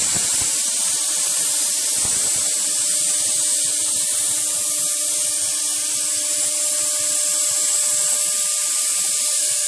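CNC router spindle running at speed, its end mill cutting a channel through pink foam board: a steady high hiss with a faint constant whine.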